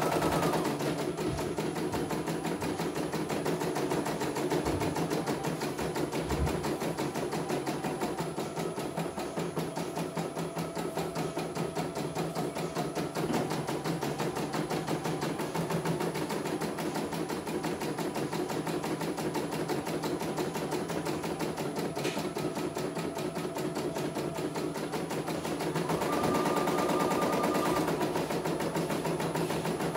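CNY E900 portable computerized embroidery machine stitching a design on hooped fabric: a fast, even needle clatter that keeps up steadily, with a brief higher whine a few seconds before the end.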